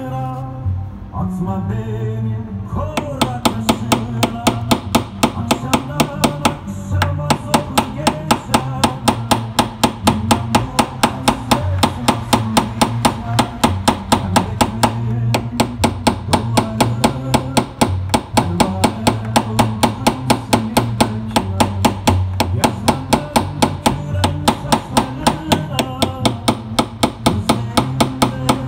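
Rapid, evenly spaced metallic taps, about two to three a second, starting about three seconds in: a tap-down hammer working a car body panel during paintless dent repair. A song with guitar plays under it.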